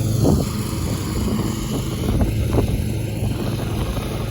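Scag Tiger Cat II zero-turn mower running steadily with a constant engine hum as its deck mulches up leaves and tree-trimming debris.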